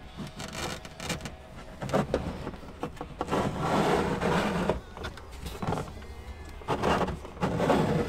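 A mounting bracket being slid under plastic cargo-area trim and the carpeted subfloor, scraping and rustling against the plastic and carpet in a few separate spells.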